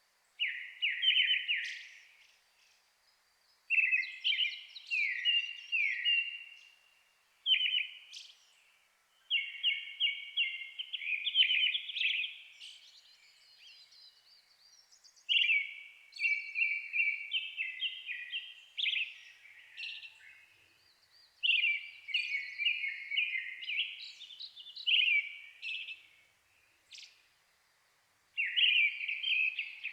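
Thrushes singing: phrases of clear whistled notes and rapid repeated notes, each a second or two long with short pauses between, from a brown-headed thrush and a louder Japanese thrush singing nearby.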